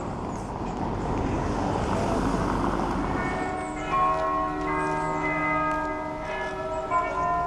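Church bells ringing, several overlapping tones with fresh strikes about four and seven seconds in, following a few seconds of general street noise.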